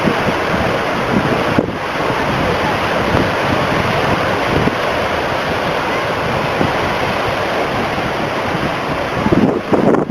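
Heavy hurricane surf crashing on the shore in a dense, steady rush, with strong wind buffeting the microphone; the buffeting turns gustier and louder near the end.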